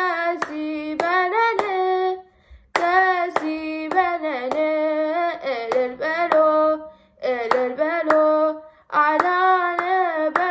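A girl singing a hymn solo, unaccompanied, in long held phrases with short breaths between them, keeping time with steady hand claps.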